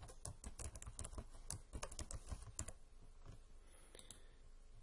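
Typing on a computer keyboard: a quick run of keystrokes lasting under three seconds, then a couple of mouse clicks about four seconds in.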